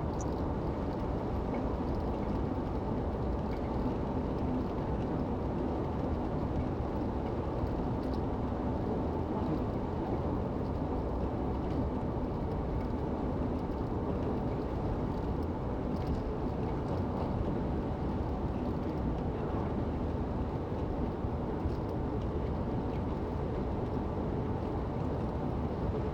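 Steady road and engine noise heard inside a moving car's cabin: an even, low rumble of tyres and engine at a constant cruising speed.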